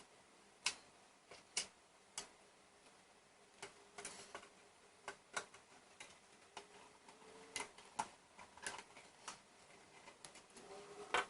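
Light, irregular clicks and taps of a screwdriver and small metal parts being handled while a graphics card cooler is screwed together, about a dozen separate ticks spread over several seconds.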